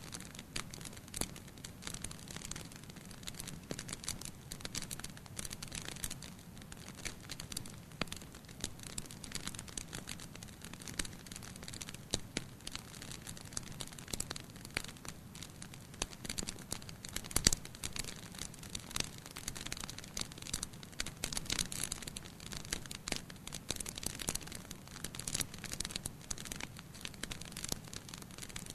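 Wood fire in a fireplace crackling: frequent irregular sharp snaps and pops over a low, steady hiss of burning, with one louder pop a little past the middle.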